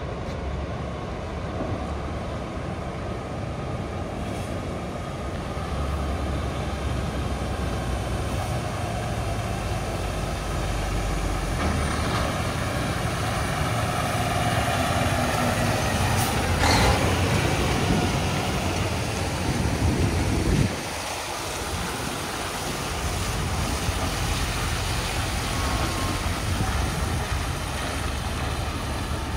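Heavy-haul diesel semi tractor running with a steady low rumble as it pulls a multi-axle oversize-load trailer. A short hiss comes about 17 seconds in, and the engine noise drops suddenly a few seconds later.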